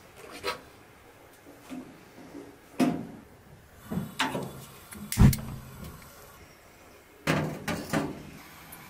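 Clanks and knocks of a small stainless-steel countertop gas oven being handled, its glass door and metal parts moved and set down, in several separate strokes with short metallic ringing. The loudest knock comes about five seconds in, and a cluster of clanks follows near the end.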